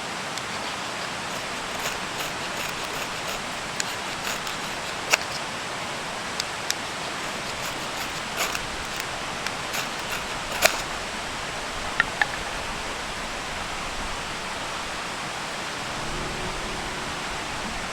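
Steady rushing noise with about a dozen sharp clicks and pops scattered through it, the loudest about five and ten seconds in. Low music notes come in near the end.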